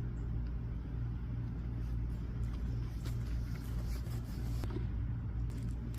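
A steady low hum, like a motor running nearby, with a few faint sharp clicks around the middle.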